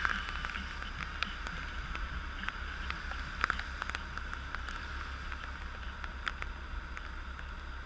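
Motorcycle idling in stopped traffic in the rain, a low steady hum under a steady hiss, with scattered sharp ticks of raindrops hitting the helmet and camera.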